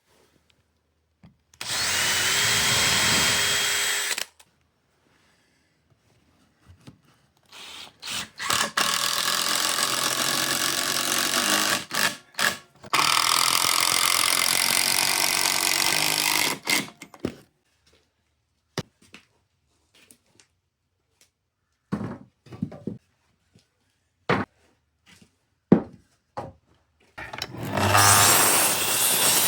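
Power tools working wood, running in separate bursts: a few seconds near the start, a long run with brief breaks through the middle, short blips later, and another loud run near the end.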